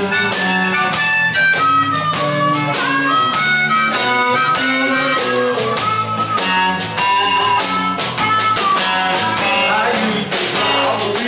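Live blues band playing: electric guitars and a drum kit, with a harmonica played into a microphone.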